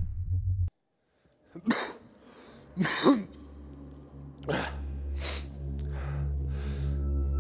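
A low rumble cuts off suddenly under a second in. After a moment of silence, a person coughs hard twice, then coughs and breathes more faintly several times. A low, steady musical drone comes in partway through.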